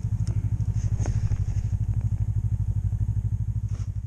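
Snowmobile engine idling with a steady, low, even putter.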